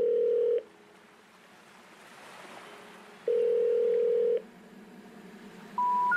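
Telephone tones: a steady ringback tone sounds twice, each about a second long with a long silent gap between. Near the end come short beeps stepping upward in pitch, the start of the special information tone that signals a call cannot be completed.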